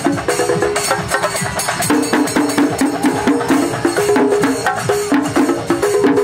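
Music with dense, fast percussion strikes under a short melodic phrase that repeats over and over.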